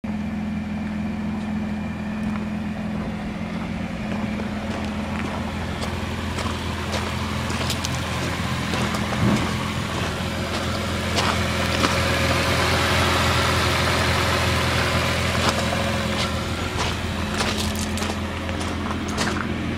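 Nissan GT-R's 3.8-litre twin-turbo V6 idling steadily, with the bonnet open. Near the end, footsteps crunch on gravel.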